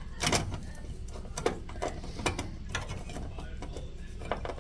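Hand tool clicking while small hardware is worked: about half a dozen sharp clicks at uneven gaps of roughly half a second to a second.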